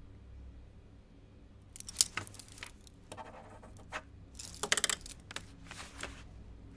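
Paper sheets being handled on a desk: a string of short rustles and sharp taps starting about two seconds in, with the loudest cluster around five seconds.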